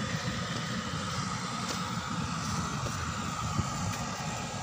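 Steady low rumble of machinery with a faint steady whine above it, and a few light clicks.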